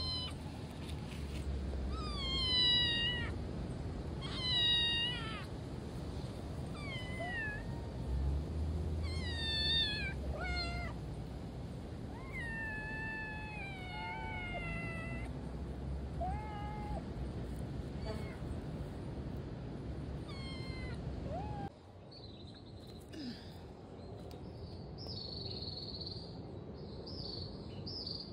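Cats meowing repeatedly: about a dozen drawn-out meows, each falling in pitch. After a break about three-quarters of the way through, fainter, higher-pitched short mews follow.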